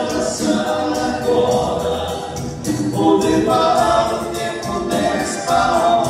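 Live dance band playing: a singer's voice over keyboard and drums, with a steady beat.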